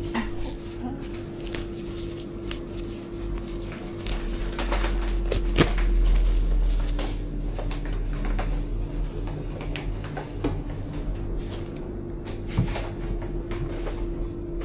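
Scattered knocks and clicks of things being handled, with one sharp knock about five and a half seconds in, over a steady low hum.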